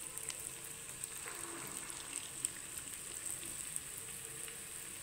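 Urad dal bondas deep-frying in hot oil in a kadai: a steady, faint sizzle with small crackles.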